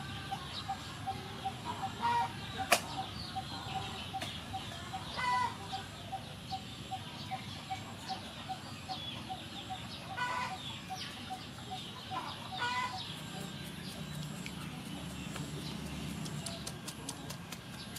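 Chickens clucking now and then over a steady run of short single notes, about three a second, that stops about 13 seconds in, with one sharp knock near the start. Near the end, a quick series of taps as a knife tip pricks the skin of boiled pork belly on a wooden cutting board.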